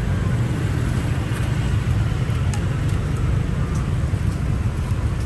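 Steady roar of busy city street traffic, a dense low rumble of passing vehicles with a few faint clicks over it.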